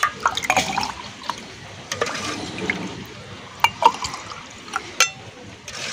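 Rose milk poured from a metal ladle into a glass jar and splashing back into the pot, with a few sharp clinks.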